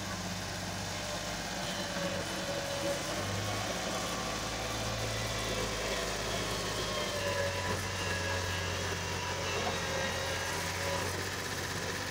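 A tractor's diesel engine runs steadily while it pulls a sand-loaded trolley through soft sand, its pitch shifting slightly a few times.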